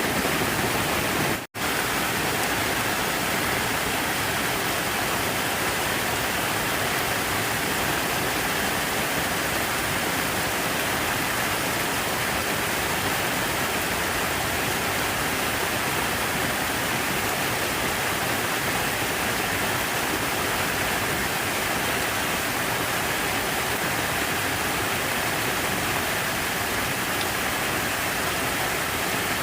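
Steady rush of falling water, an even unbroken noise, with a split-second dropout about a second and a half in.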